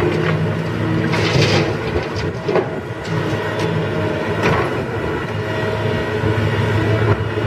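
Komatsu PC150 hydraulic excavator's diesel engine running with a steady hum as it works. About a second in, a load of rock and dirt pours with a clatter into the steel box of a dump truck, followed by a few scattered clanks as the machine swings back to dig.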